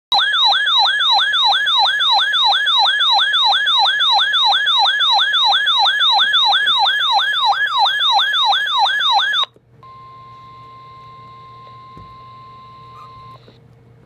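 RadioShack weather alert radio sounding its alert siren: a loud warble sweeping up and down about three times a second, which cuts off about nine seconds in. The radio then plays the weather broadcast's steady 1050 Hz alert tone, much quieter, over radio hiss, for about four seconds. Together they mark an incoming tornado warning.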